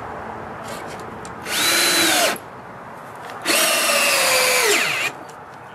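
Power drill driving deck screws into a wooden stair tread in two runs, a short one and then a longer one whose pitch drops just before it stops.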